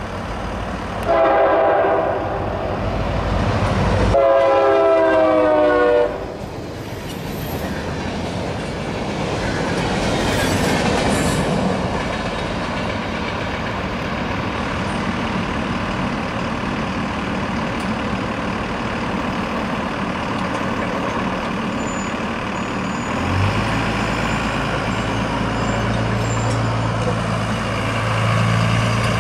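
Air horn of a CSX EMD GP40-2 freight locomotive: a short blast, then a longer one that drops in pitch as it passes. The rolling rumble and wheel clatter of its empty open hopper cars follow. A low steady drone comes in about 23 seconds in.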